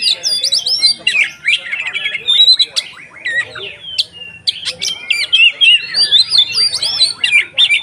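Oriental magpie-robin (kacer) singing an excited, loud, continuous song: a fast run of varied short whistles and chattering notes that thins briefly near the middle. This is the open-throated 'konslet ngeplong' song that keepers play to provoke other magpie-robins.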